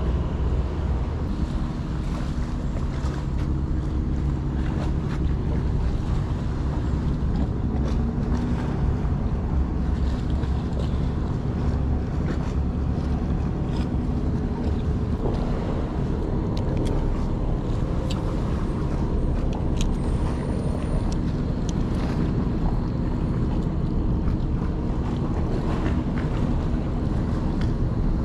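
A boat's engine running steadily, a low drone with wind buffeting the microphone.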